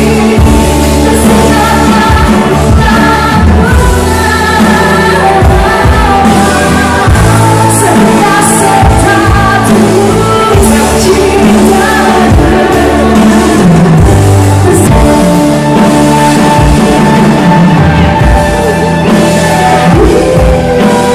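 Live band music, loud: a woman sings a melody into a microphone over electronic keyboards, electric guitar and a drum kit keeping a steady beat.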